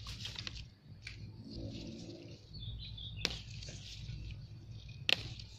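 Leaves and twigs of a potted water apple tree rustling as water shoots are pinched off by hand, with two sharp snaps, one about three seconds in and one near the end.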